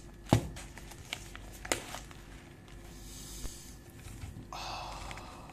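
A paper tea pouch handled on a table: a few sharp knocks and small taps, then a stretch of papery rustling about a second before the end.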